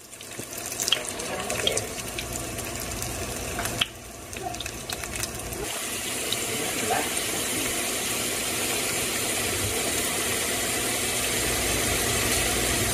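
Kitchen tap running into a sink, a steady hiss of water that grows slightly louder, with a few light clinks of dishes in the first few seconds.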